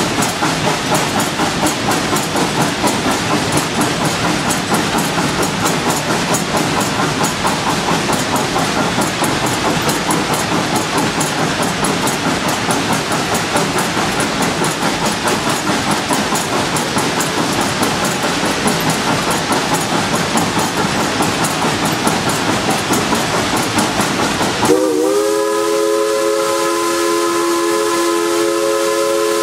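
Narrow-gauge 2-8-2 steam locomotive (Tweetsie Railroad #190) under way, heard from inside its cab as a loud, rhythmically pulsing clatter of the engine and wheels on the rails. About 25 seconds in, its steam whistle cuts in with one long chord of several notes, sliding briefly into pitch and then held steady.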